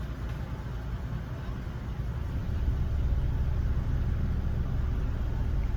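Car engine and road rumble heard from inside the cabin, a steady low drone that grows louder about halfway through.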